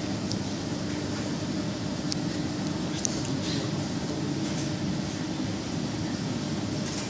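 Steady indoor room noise with a low, even hum and a few faint clicks.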